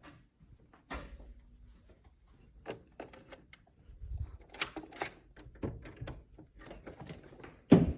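A door being opened and handled: latch and hardware clicks and knocks, with a sharp knock about a second in and a loud thump near the end.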